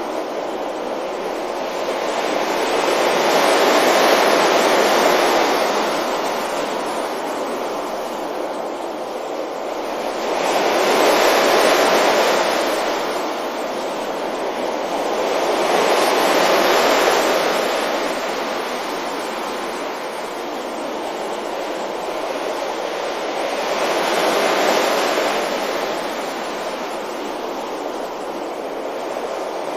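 Sea waves breaking gently on a beach: a steady wash of surf that swells and falls back four times, every five to eight seconds.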